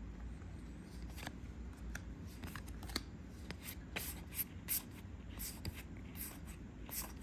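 Star Wars Unlimited trading cards being handled and flipped through, a scatter of soft, irregular flicks and ticks as card slides over card.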